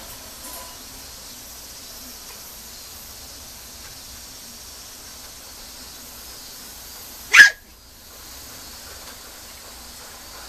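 A Mame Shiba puppy gives a single short, loud yip about seven seconds in, over a steady faint hiss.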